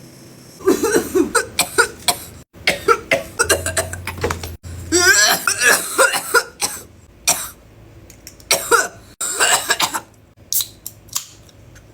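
A person coughing hard, over and over, in several fits of rapid coughs with short pauses in between.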